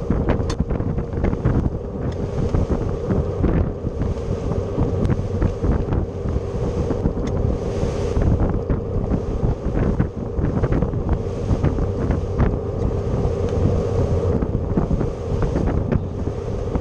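Boat engine running steadily underway, with wind buffeting the microphone and water splashing against the inflatable hull.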